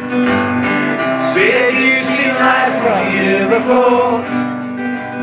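Acoustic guitar strummed live, with a man's singing voice coming in about a second and a half in over the chords.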